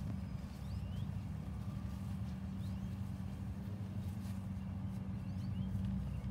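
Steady low mechanical hum, with a few faint short high chirps over it.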